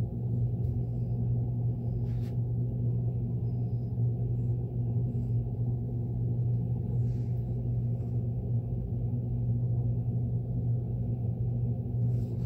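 Steady low machine hum in a workshop, unchanging throughout, with a few faint light ticks.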